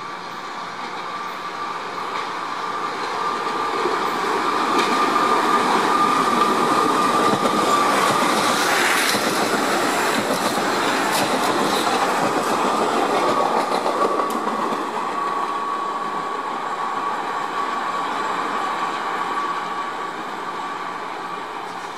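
Vintage New York City subway train running past at close range. The wheel and rail noise builds to a peak in the middle, with clicks over the rail joints, then eases off. A steady high whine runs through it all.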